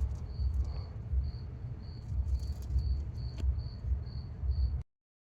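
A cricket chirping in a steady even rhythm, about two to three short high chirps a second, over a low rumble. The sound cuts out completely just before the end.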